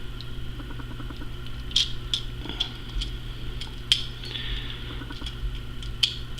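Small die-cast toy car parts and plastic wheels being handled on a hard surface: about half a dozen light clicks and taps spread irregularly, over a steady low hum.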